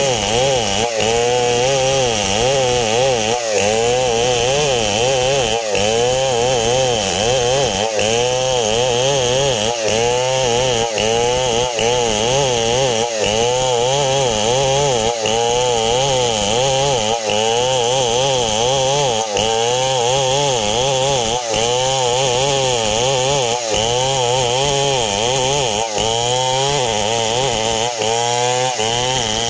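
STIHL 070 two-stroke chainsaw running under load as it cuts through a coconut-palm log, its engine pitch wavering up and down about once a second without a break.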